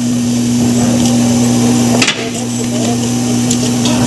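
Steady machine hum in a garage workshop, two even tones held throughout over a background hiss, with one sharp knock about two seconds in.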